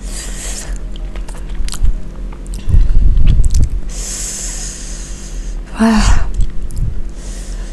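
Close-miked breathing and chewing of someone reacting to very spicy food: hissing breaths sucked in against the chili burn, chewing with low thumps in the middle, and a short voiced gasp about six seconds in.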